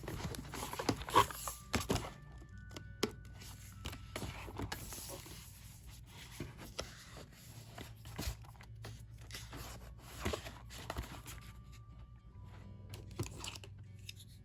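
Paper pages of a thin workbook being turned and handled: a string of soft rustles, paper flicks and light taps, with faint background music under them.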